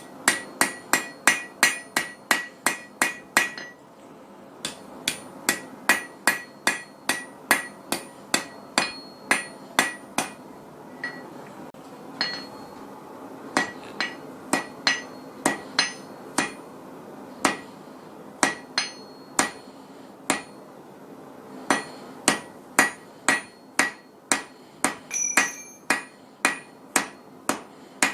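Hand hammer striking steel bar stock on an anvil during forging: quick runs of blows, about three a second, each with a bright metallic ring, broken by a few short pauses.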